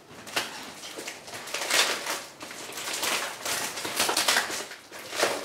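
A taped cardboard box being opened: cardboard and packing tape scraped and rustled in a string of irregular scratches.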